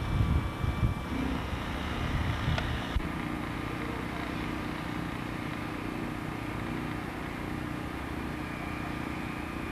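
Wind buffeting the microphone in low gusts, which stop abruptly about three seconds in, leaving a steady low mechanical hum.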